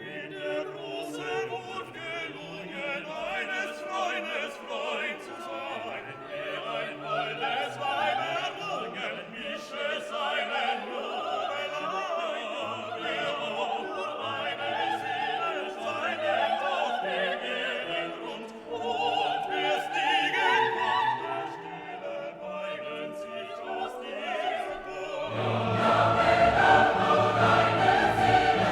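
Classical music with operatic singing and choir over an orchestra, growing louder and fuller near the end.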